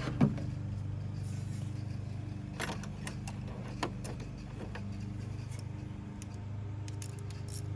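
Scattered metallic clinks and taps of hand tools and parts being moved in a Jeep Liberty's engine bay, a few separate knocks with a small cluster near the end, over a steady low hum.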